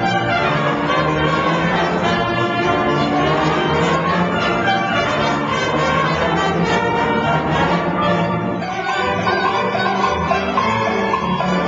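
High school philharmonic orchestra playing, with brass among the instruments heard.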